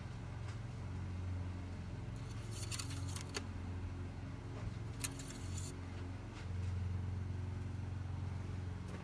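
A vehicle engine idling with a steady low hum, interrupted twice, about two and a half and five seconds in, by short crisp bursts of handling noise.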